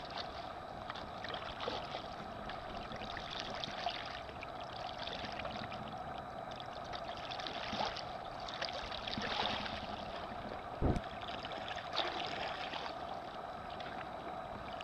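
Water trickling and splashing around an inflatable kayak as it is paddled, swelling louder now and then with the strokes. About eleven seconds in there is a single dull thump.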